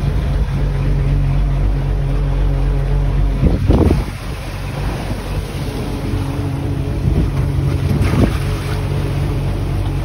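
Shrimp trawler's engine running steadily under way, with wind buffeting the microphone and waves washing along the hull. A brief loud rush comes about three and a half seconds in.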